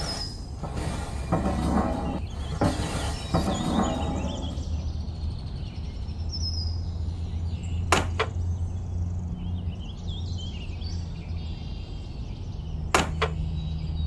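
Cardboard pieces being handled and pressed into sand, with scraping rustles in the first few seconds, then two sharp taps about eight and thirteen seconds in as the cardboard bridge deck is set down and pressed into place. A steady low hum and faint bird chirps run underneath.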